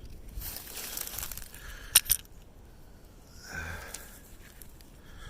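Clothing rustling as a hand rummages through a pocket, with two sharp clicks about two seconds in. A short, low vocal sound follows a little later.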